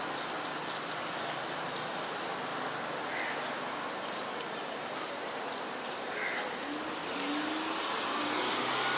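Steady road traffic noise, with a motor vehicle's engine growing louder and rising slightly in pitch over the last couple of seconds.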